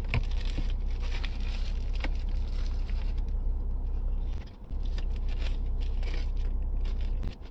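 Biting into and chewing a double burger topped with crunchy tortilla strips and crispy corn, with scattered small crunches and crackles. Under it runs a steady low hum of the car cabin.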